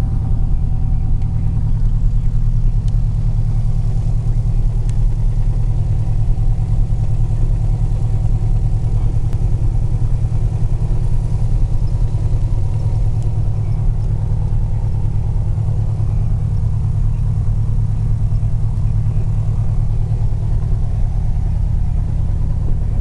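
Single-engine light aircraft's piston engine and propeller heard from inside the cabin, running as a steady low drone while the plane taxis.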